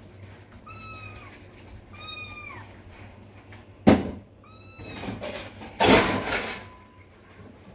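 Small kitten mewing three times, thin high mews that drop in pitch at the end. A sharp knock about four seconds in and a louder clatter around six seconds come from dishes being washed at the sink.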